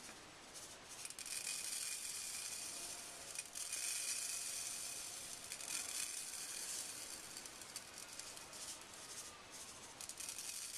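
Tiny micro beads shaken out of a small cup onto a wet nail-polished fingernail and falling into a bowl below: a steady, hiss-like rattle that swells and eases several times.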